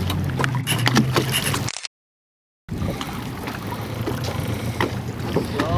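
Fishing boat's engine running with a steady low hum under wind and water noise, with a few light clicks. The sound cuts out completely for under a second about two seconds in, then returns.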